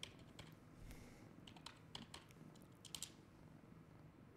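Faint, scattered clicks of a computer keyboard and mouse: a few soft keystrokes and clicks spread over the few seconds, with near silence between.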